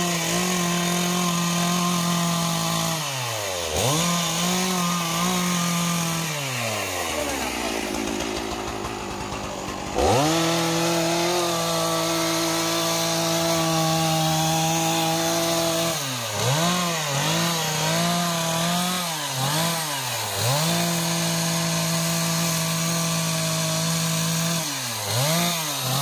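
STIHL MS 460 two-stroke chainsaw cutting into the trunk of a jackfruit tree at full throttle. A few seconds in, the engine note falls away to idle for a few seconds, then snaps back up, and later it dips and recovers several times as the chain bites into the wood.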